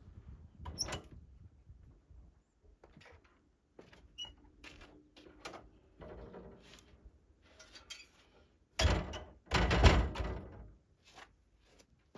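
Scattered knocks and clicks of things being handled. A short loud clunk comes just before nine seconds in, then a louder clunk with a scrape that lasts about a second, like a heavy door or lid being slid.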